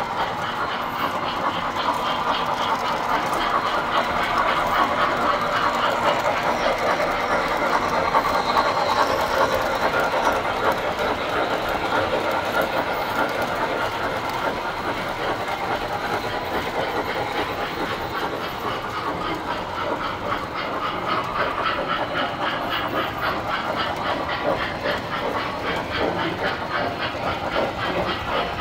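Tinplate model trains running on metal track: a steady rolling clatter of wheels and motors over the rail joints, a little louder about a third of the way in as a train passes close by.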